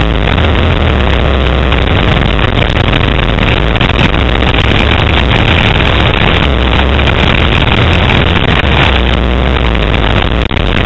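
Loud dirt bike engine running under throttle on a motocross track, heard from a camera on the moving bike, its low note shifting as the rider works the throttle, with heavy noise over it.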